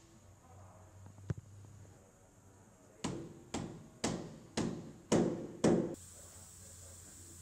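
A single sharp click, then six knocks about two a second that grow louder and stop suddenly, over a faint steady hum.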